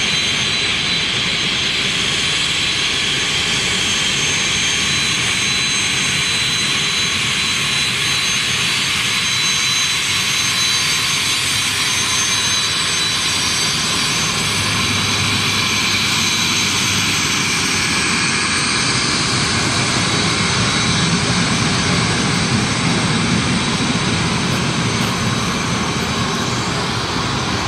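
Steady jet whine and rushing noise from the parked Boeing 737-448, with several steady high tones over it. A low rumble grows a little partway through.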